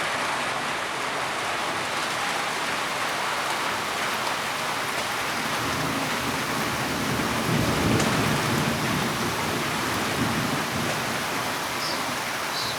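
Steady heavy rain with a low roll of thunder that swells about halfway through and fades again.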